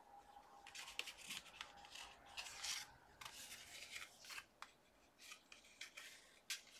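Faint rustling and rubbing of lace trim and a paper tag being handled and threaded by hand, a run of short scratchy sounds starting about a second in.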